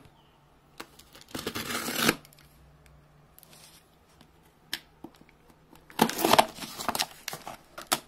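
A utility knife slicing through a taped cardboard box and the flaps being torn open: a short scratchy burst about a second and a half in, a few light clicks, then a longer, louder stretch of cutting and tearing from about six seconds.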